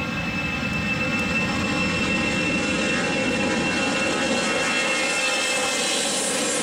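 Jet engines of an easyJet Airbus A320-family airliner rolling along the runway and passing at close range: a steady loud rush with a high fan whine that fades out near the end.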